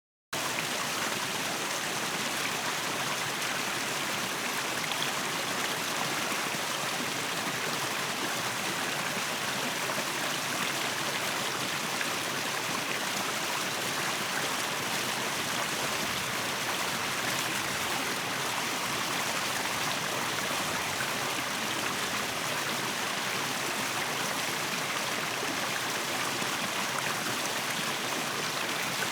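Flowing stream or brook running steadily, an even rush of water with no distinct splashes. It cuts in abruptly just after the start.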